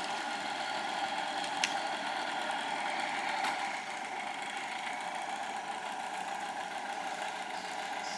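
A small engine running steadily at idle, an even hum that does not change, with two faint clicks about a second and a half and three and a half seconds in.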